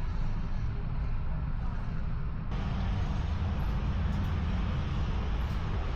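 Steady low rumble of street traffic. About two and a half seconds in, the hiss in the upper range gets abruptly louder.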